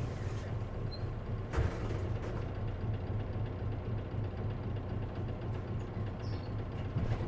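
Isuzu KC-LV380N city bus heard from inside the cabin, its diesel engine running with a steady low hum. There is one short burst of noise about a second and a half in.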